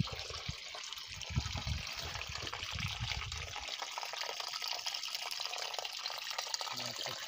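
Mountain spring water trickling and splashing between rocks onto stones, a steady running sound. A few low rumbles and thumps, stronger in the first few seconds, sit under it.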